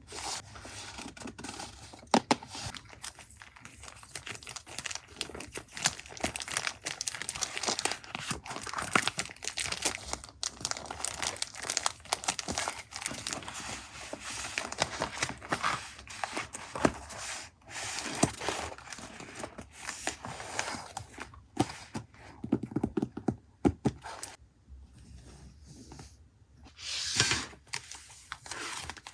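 Paper being handled, crinkled and torn in close-up, with scattered sharp taps and rustles; it eases off for a moment about three-quarters of the way through, then picks up again with a louder rustle near the end.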